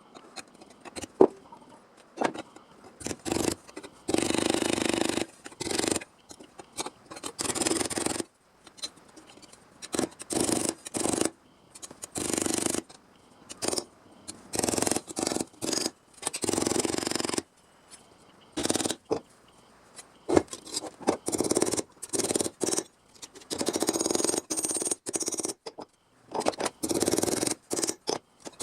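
Sheet-metal fabrication work: a tool cutting or working steel panel in a dozen or so separate bursts, each a second or two long, with short pauses between.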